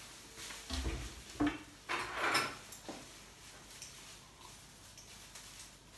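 Kitchen handling noises: a couple of dull knocks about a second in, then a short rustling hiss a little after two seconds, followed by a few faint clicks.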